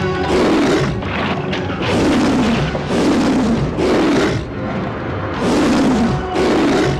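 Dramatic background music with about six loud, roar-like bursts laid over it, each under a second long and falling in pitch: a lion-roar sound effect for the man-lion Narasimha.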